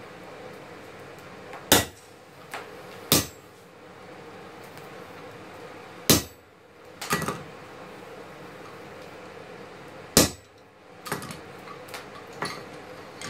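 Blacksmith's hand hammer striking on an anvil, working a red-hot knife blank with a handled chisel: single sharp metallic blows a second or several apart, each ringing briefly, with a few lighter taps near the end. A steady faint hum runs underneath.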